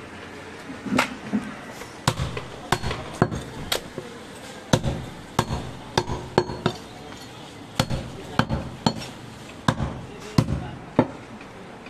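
A heavy butcher's knife chopping through goat ribs onto a wooden log chopping block: a run of sharp, irregular thuds, two or three a second.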